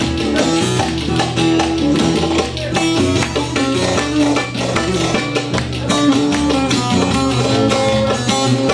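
Instrumental break of a Turkish folk song: a plucked-string melody over a steady bass and beat, with no singing.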